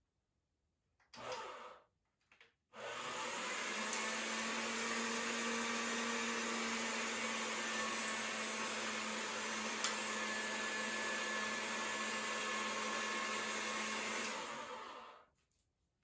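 Motorized pasta machine running steadily, rolling a sheet of polymer clay sandwiched in a texturing sponge through its rollers. The motor hum starts about three seconds in and stops near the end, after a brief handling noise at the start.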